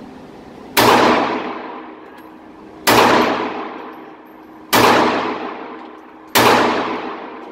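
Four pistol shots from a Glock 42 in .380, fired about two seconds apart. Each sharp bang is followed by a long echo off the concrete walls of an indoor range.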